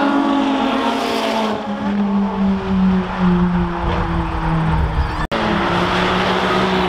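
Sports car engine on a racetrack, its note falling steadily as the car goes by. About five seconds in the sound cuts out for an instant, and another car's engine carries on at a steadier pitch.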